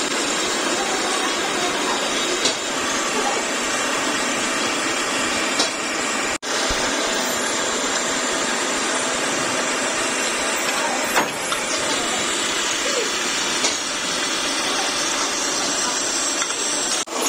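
Metalworking machine running steadily while machining a steel kingpin under coolant: an even, hissing machine noise. It drops out for an instant about six seconds in and again near the end.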